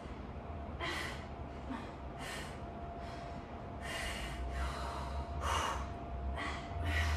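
Hard breathing from exertion during a dumbbell workout: short, sharp breaths roughly once a second.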